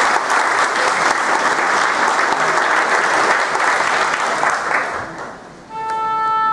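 Audience applauding, dying away about five seconds in. Near the end a single steady held note from a musical instrument begins.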